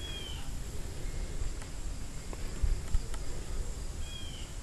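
Insects trilling steadily outdoors over a low rumble, with two short high chirps about four seconds apart.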